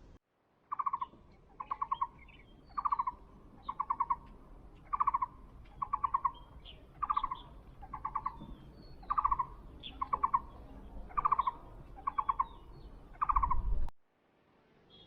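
An animal call repeated about a dozen times, roughly once a second: each call is a short falling note followed by a quick rattle of pulses. It cuts off suddenly near the end.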